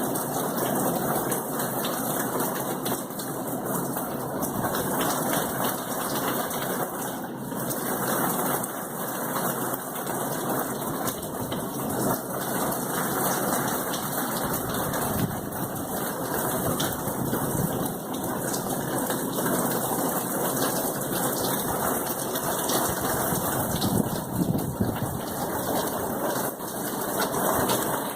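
Heavy hurricane rain falling steadily: a dense, even rush of noise with no letup.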